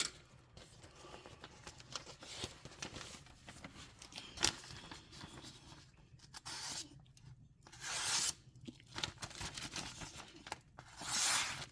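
Knife blade of an OTool OMA01 titanium multitool making a series of slicing cuts in a sharpness test, each stroke a short hiss. The longer strokes come about two-thirds of the way through and near the end.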